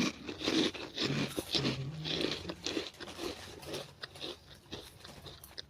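A person biting and chewing crunchy noodles straight from the packet, with loud irregular crunches for about three seconds that then grow fainter.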